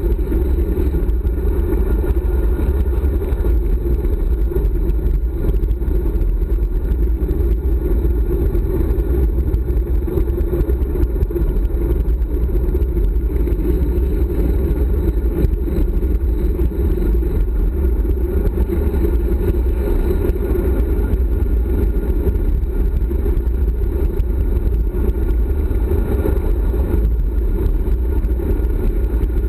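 Wind buffeting the microphone of a handlebar-mounted GoPro as a road bike descends at speed: a steady, loud rush, heaviest in the low end, without let-up.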